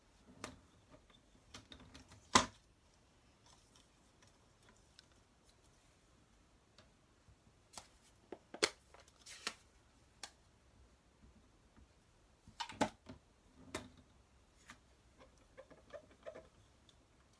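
Scattered sharp clicks and taps from a clear acrylic stamp and a stamp positioning tool being handled while an image is inked and stamped, the hands pressing down on the positioner lid. The loudest is a single sharp click about two and a half seconds in, with quiet gaps between the taps.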